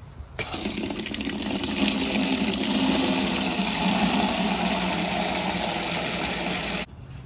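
Water pouring steadily into an empty white plastic Igloo marine ice chest, filling the bottom with a few inches of water. It starts about half a second in and stops suddenly near the end.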